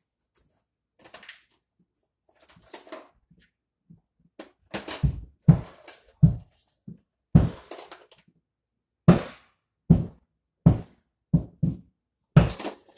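A series of irregular knocks and thuds, about a dozen, each short with a deep thump; a few faint ones in the first seconds, then louder and closer together from about five seconds in.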